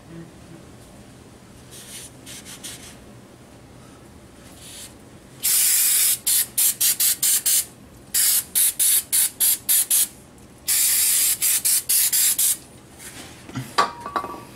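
Spray hissing in a string of squirts: a few longer bursts of about a second and many short ones, several a second, starting about five seconds in.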